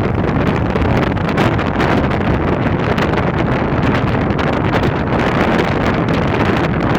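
Storm wind blowing hard across the microphone: a loud, steady rush of noise that never lets up.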